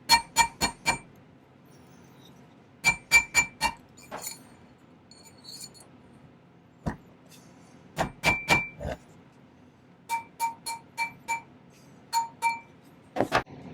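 Hammer tapping a sterling silver ring on a steel ring mandrel to shape it, in quick runs of two to six strikes, each with a short bright metallic ring.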